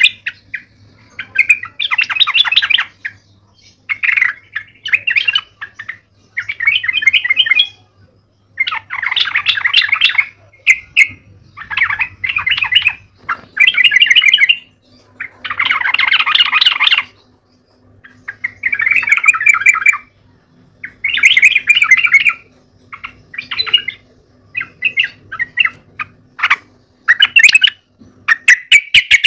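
Yellow-vented bulbul singing in vigorous, repeated bursts of rapid notes. Each phrase lasts a second or two, with short pauses between.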